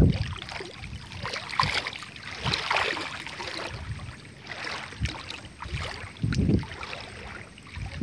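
Irregular light rustling of grass and leaves, with brief gusts of wind on the microphone, the strongest about six seconds in.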